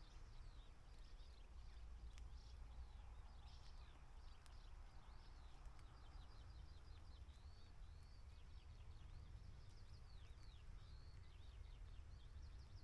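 Faint birdsong: small birds giving many short, high chirping notes in quick runs, over a steady low background rumble.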